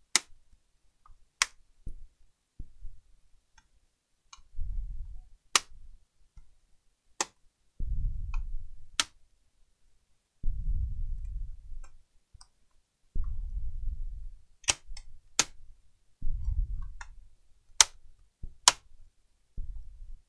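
A laptop keyboard being pried out of its frame: about nine sharp plastic clicks spread out irregularly as its retaining latches snap free, with low dull handling noise from hands pressing on the keyboard between them.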